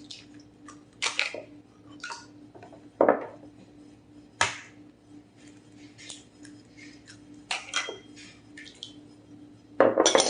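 Kitchen handling sounds as ingredients go into a mixing bowl: a handful of short knocks, clinks and rustles of dishes and utensils, one sharp click about halfway through, over a faint steady hum.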